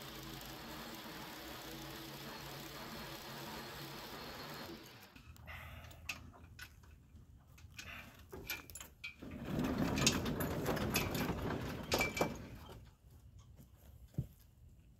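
Small petrol engine of a portable bandsaw sawmill running steadily, then shut off about a third of the way in. Clattering knocks and a few seconds of louder scraping follow, the loudest part, as wood and gear are handled.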